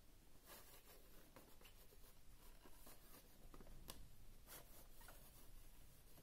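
Faint scrapes and light taps of a plastic figure's base being turned and shifted by hand on a shelf, a few short scratchy strokes scattered through otherwise quiet room tone.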